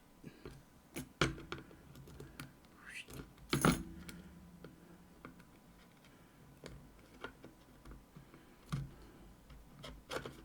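Small metal tool clicking and scraping against a lock cylinder while prying off its retaining ring: scattered sharp metallic clicks and short scrapes, the loudest about three and a half seconds in.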